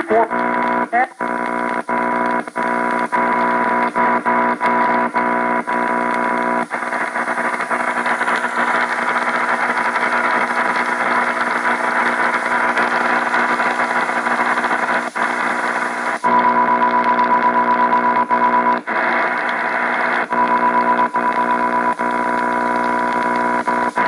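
AM radio tuned off-station, putting out a loud droning buzz of interference with a steady high whistle that drops out and returns, broken by frequent crackles and short dropouts; a brief swooping tone about a second in as the dial is turned.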